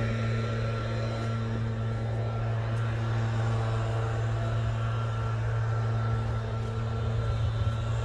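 A steady low mechanical hum with a faint noise bed behind it, unchanging throughout, like an engine or traffic drone.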